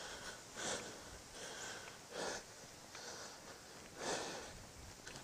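A runner breathing hard, with a breath about once a second, while catching his breath between running intervals.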